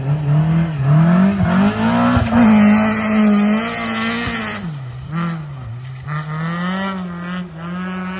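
Rally car engine revving hard under throttle on a gravel stage. The pitch climbs and holds high through the first half, drops sharply a little past halfway, then rises and falls several times with the throttle.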